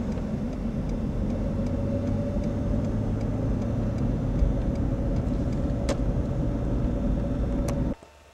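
Car driving along a country road, heard from inside the cabin: a steady engine and tyre drone with a faint steady tone over it and a couple of light clicks. It cuts off suddenly near the end.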